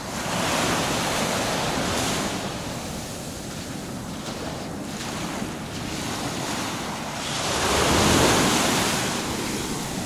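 Small Baltic Sea waves breaking and washing up a sandy beach, with one surge just after the start and a louder one about eight seconds in. Wind rumbles on the microphone underneath.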